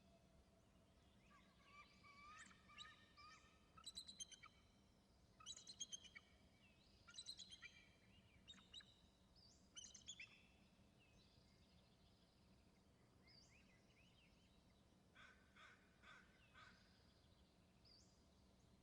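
Eagle calling: series of high, stuttering, chattering notes in several bursts, then a shorter burst of calls near the end, heard faintly.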